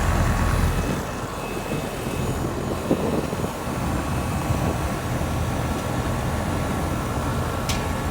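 2007 Rheem 1.5-ton condensing unit running steadily: the reciprocating compressor hums under the rush of the condenser fan, a minute or two after start-up while its R-22 pressures are still settling. There is a single short knock about three seconds in.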